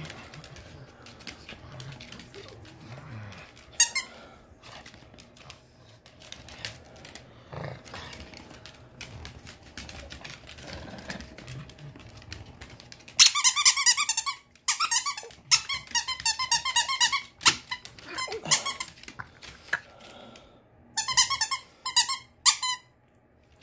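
Stuffed tug toy squeaking in loud, rapid bursts as a pug bites and tugs it, starting a little past halfway and coming back in short bursts near the end. Before that, only soft scuffles and clicks of the tug play on a hardwood floor.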